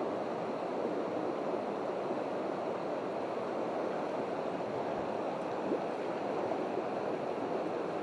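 Shallow mountain stream running over rocks and gravel, a steady rushing of water.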